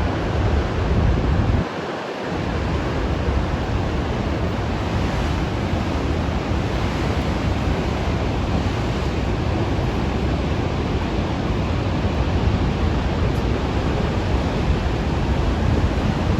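Heavy ocean surf rushing, with strong wind buffeting the microphone as a deep rumble. The rumble drops out for a moment about two seconds in.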